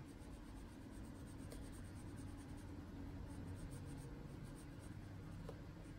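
Faint scratching of a Prismacolor colored pencil shading on paper.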